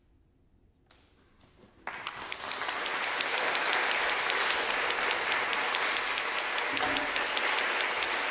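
After about two seconds of near silence, audience applause starts suddenly and carries on as steady clapping.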